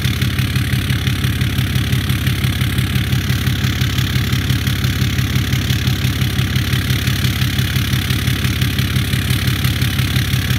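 Ram 2500's 6.7-litre Cummins inline-six turbodiesel idling through a 4-inch turbo-back exhaust at the tailpipe, a steady, evenly pulsing low exhaust note; the engine is still cold, a minute after a cold start.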